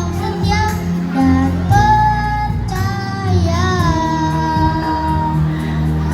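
A child singing a melody over backing music, holding one long note in the second half.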